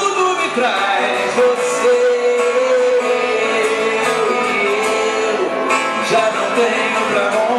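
Live music: a man singing over an electric guitar.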